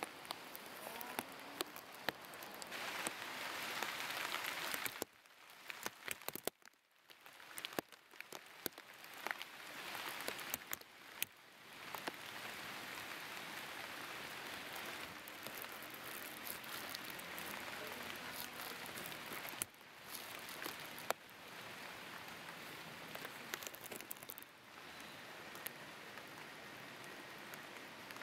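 Steady crackling, rain-like hiss peppered with many small sharp clicks, dropping almost away for a couple of seconds about five seconds in.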